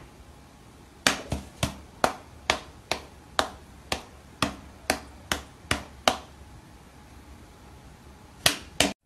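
A cat's paws slapping against an open human palm: about a dozen sharp pats in quick succession, roughly two a second, then a pause and two more pats near the end.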